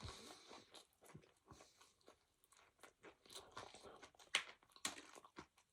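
Faint chewing close to the microphone: a person eating, with irregular soft crunches and wet mouth clicks.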